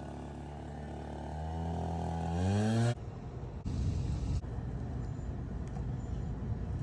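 A motor running at a steady pitch, then rising in pitch before it cuts off suddenly about three seconds in; a steady low rumble follows.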